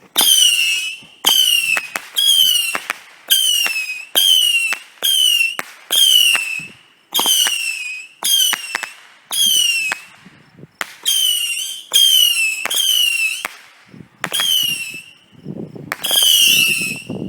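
Saturn missile fireworks from a 25-shot pack firing one after another, about one a second: each a short whistle that falls slightly in pitch, ending in a sharp pop.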